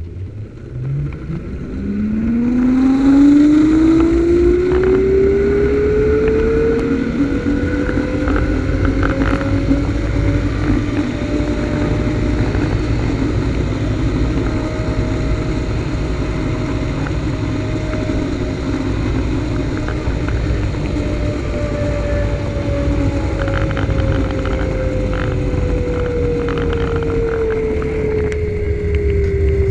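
Zipline trolley pulleys running along the steel cable. Their whine rises in pitch over the first ten seconds or so as the rider gathers speed, holds, then falls slowly near the end as the trolley slows. Wind rushes over the microphone throughout.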